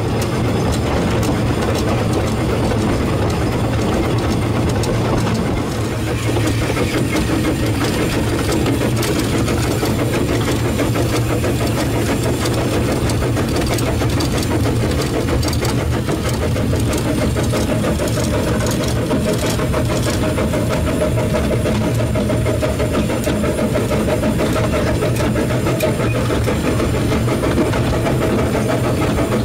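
Corris Railway steam locomotive No.7 heard from inside its cab while running along the line: a loud, steady mix of machinery and running noise. About halfway through, a steady tone joins in and holds.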